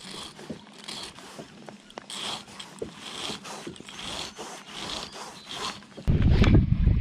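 Hook file rasping on a lure's treble hook in short back-and-forth strokes, about two or three a second: the hook points are being sharpened. About a second before the end a loud low rumble takes over.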